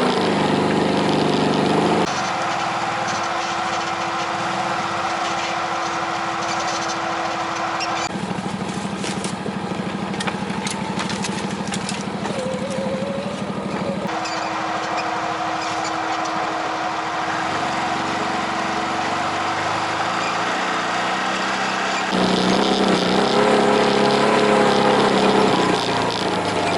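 Small off-road vehicle engine running under way, in several short clips whose sound changes suddenly every few seconds, with scattered clicks and knocks in the middle stretch.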